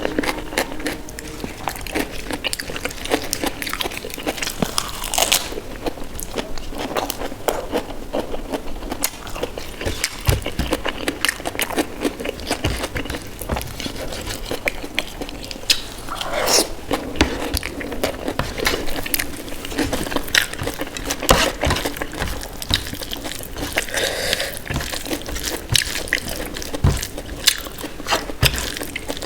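Close-miked eating sounds: chewing and biting a meal of rice with dal and mashed potato, with many quick, irregular wet clicks and smacks.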